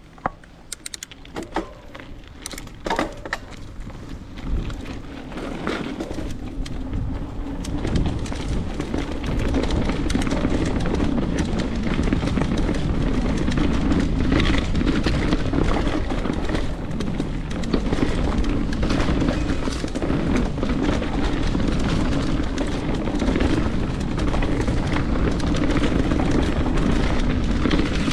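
A mountain bike rolling down a dirt trail, heard through a GoPro's microphone: a few sharp clicks and knocks at first, then wind buffeting and rattling trail rumble that build over the first eight seconds or so and stay loud and steady.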